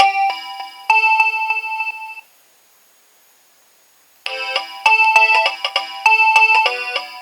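Nokia 2300 mobile phone playing a polyphonic ringtone through its small speaker, a tune of held electronic notes with several sounding together. It stops about two seconds in, and after about two seconds of quiet the next ringtone starts abruptly.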